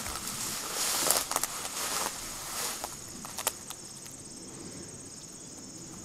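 Footsteps crunching and crackling through dry undergrowth over the first three and a half seconds or so, then stopping. A steady high-pitched insect drone runs underneath throughout.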